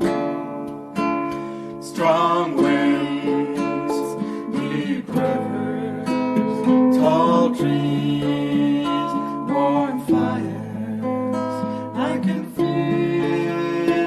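Acoustic guitar being strummed, with a voice singing a wordless or sustained melody over it from about two seconds in.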